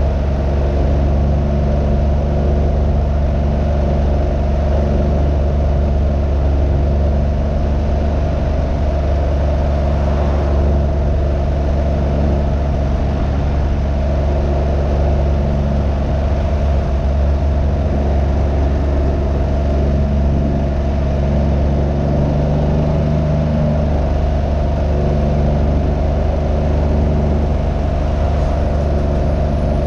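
Can-Am Ryker 900's Rotax three-cylinder engine running steadily while riding, with wind noise over the microphone. The engine note shifts slightly about three-quarters of the way through.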